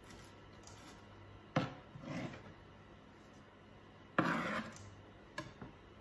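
A few knocks and scrapes of kitchen utensils: a chef's knife on a plastic chopping board and a wooden spoon in a saucepan of sauce. A sharp knock comes about one and a half seconds in, and the loudest sound is a half-second scrape about four seconds in.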